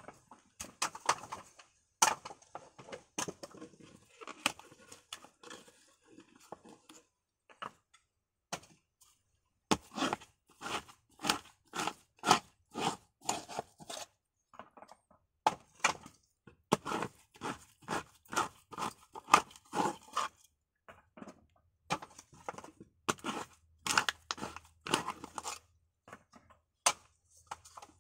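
Coconut meat being pried and scraped out of the hard shell with a hand tool for copra: quick runs of sharp cracking and crunching strokes, with a short pause about a third of the way in.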